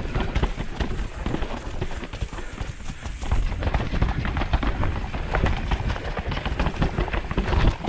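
Mountain bike clattering over rough, rocky ground: rapid, irregular knocks and rattles over a steady low rumble.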